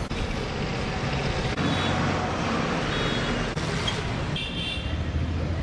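Street traffic noise: engines running and vehicles passing in a steady rumble, with a few faint high tones partway through.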